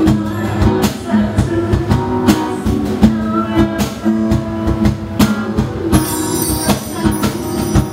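Live acoustic band music: acoustic guitar with cajon beats. About six seconds in, a bright jingling shimmer of bar chimes joins in.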